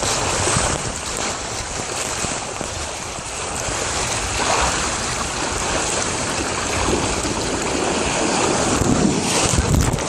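Water rushing down a water slide, a steady noisy rush with wind buffeting the microphone.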